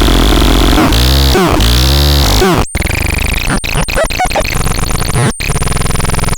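Synthesized electronic sound effects from an ASMAR C1002TN: buzzy noise and wobbling, sweeping tones, then a different set of tones that cut out abruptly a few times.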